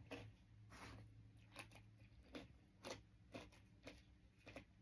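Faint crunchy chewing: a person eating crunchy food, with short crunches and clicks at irregular intervals, about a dozen in all.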